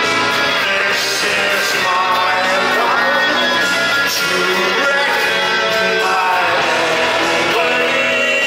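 Live rock band playing, with a male lead singer's vocals over electric guitar and drums.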